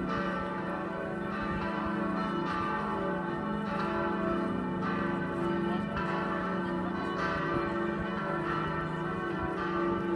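A partial peal of four swinging church bells ringing together, their strikes overlapping about once a second over a continuous hum. The bells are tuned a', f♯', e' and d'. Two are heavy baroque bronze bells cast in 1736 by Johann Baptist Dival, of 1,100 and 1,400 kg. Two are newer bells cast in 2013 by Perner, of 421 and 706 kg.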